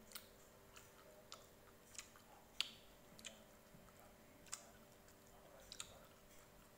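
Someone quietly chewing a mouthful of tahu tek: faint wet mouth clicks and smacks, about eight scattered through a near-silent stretch, the sharpest a little under three seconds in.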